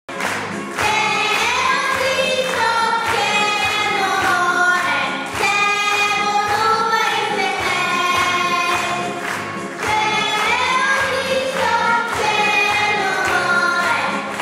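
A small group of young girls singing a song together, the melody carried in phrases of a few seconds with short breaks between them.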